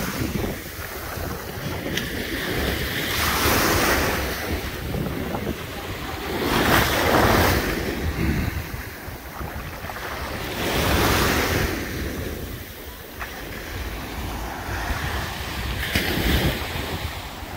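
Small waves breaking and washing up a sandy beach, the surf swelling about every four seconds, with wind rumbling on the microphone.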